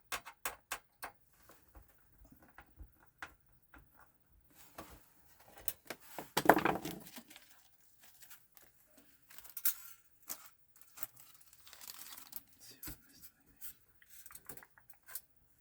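Plastic and metal parts of a PS4 Pro console being handled during disassembly: scattered small clicks and knocks, with one louder rustling scrape about six to seven seconds in.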